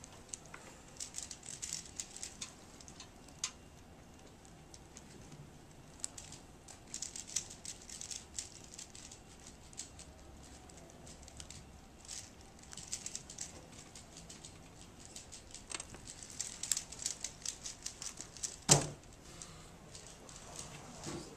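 Rubik's cube being turned quickly by hand: bursts of rapid plastic clicks and clacks, with short pauses between runs of turns and one louder knock near the end.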